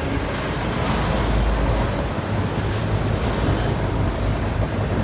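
Train running by: a steady low rumble under a loud, even rushing noise.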